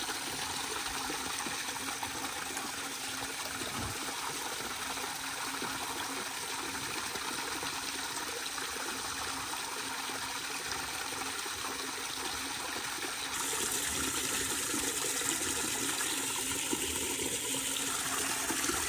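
Water running steadily from a frost-free yard hydrant through a white PVC pipe spout, splashing into a plastic stock tank of water.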